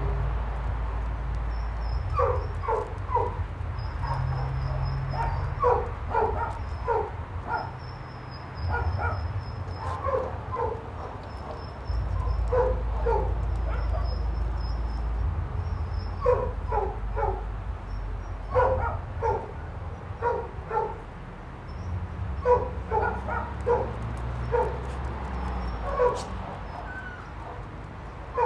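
A dog barking repeatedly, in quick runs of two to four barks every couple of seconds, over a steady low rumble.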